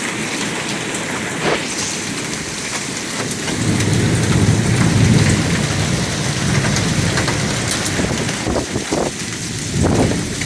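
Heavy rain pouring down with hail in it, and scattered sharp hits. A low rumble of thunder swells a few seconds in and fades away.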